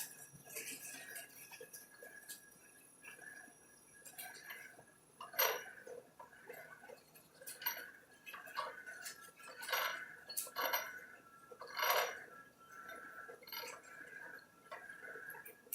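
Kent SGS-1020AH automatic hydraulic surface grinder being demonstrated, giving sharp metallic clinks and knocks every couple of seconds over a faint steady whine.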